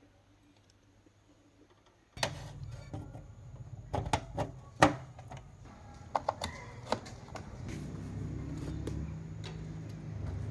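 Amplifier putting out a low electrical hum through its speaker, which comes in suddenly about two seconds in, with scattered clicks and crackles over it.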